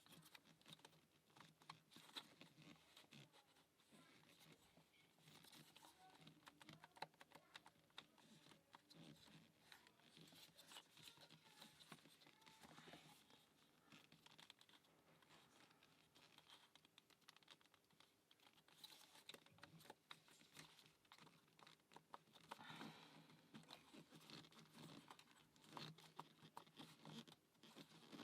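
Faint, irregular clicking, tapping and scraping of the laser-cut plywood parts of a UGears wooden combination-lock model being handled and worked at by hand, over a faint steady low hum.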